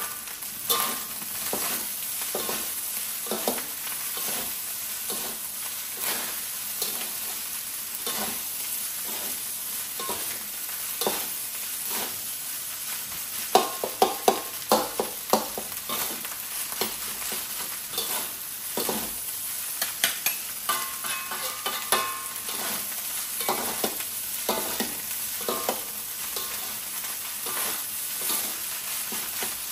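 Fried rice being stir-fried in a pan: a steady sizzle with a metal spatula scraping and knocking against the pan, the knocks coming in quicker runs about halfway through and again about two-thirds through.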